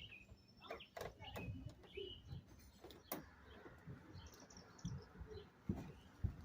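Birds chirping in the background, with scattered light clicks and knocks from hands and a tool working on the plastic casing of a portable air conditioner; the sharpest knocks come near the end.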